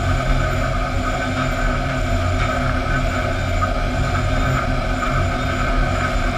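Steady din of sawmill machinery running: chain conveyors and lug transfer moving fence boards, a continuous hum at several fixed pitches with a few faint knocks of boards.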